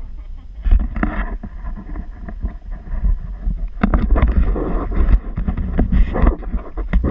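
Leaves and stems brushing and scraping against a moving handheld camera while someone pushes through dense brush, over a constant low rumble of wind and handling on the microphone.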